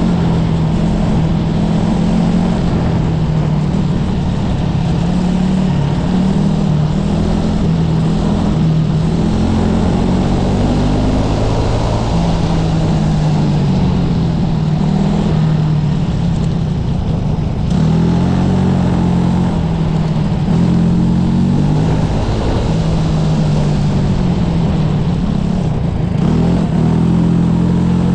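SA250 racing kart's engine heard from the driver's seat, revving up and dropping back again and again as the kart accelerates and lifts off through a lap.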